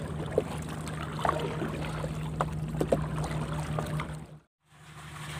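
Small boat motor running with a steady low hum, with light splashes and a few sharp knocks from water and the hull over it. The sound drops out abruptly for a moment about four and a half seconds in, then the hum returns.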